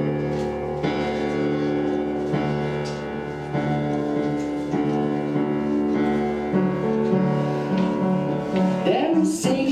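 Instrumental worship music: a keyboard plays sustained piano chords that change about once a second, leading into a sung worship song.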